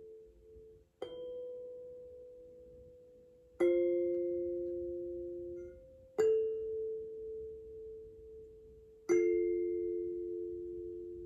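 Tuning forks struck four times, a few seconds apart. Each strike gives a brief high ping and then a few steady pure notes sounding together, which ring on and slowly fade.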